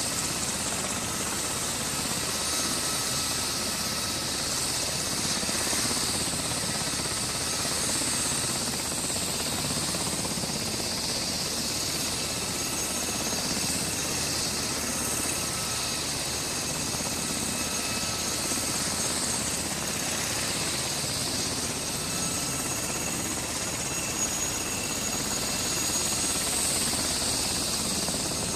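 UH-60 Black Hawk helicopter running on the ground with its main rotor turning: a steady rotor and engine noise with a faint high whine.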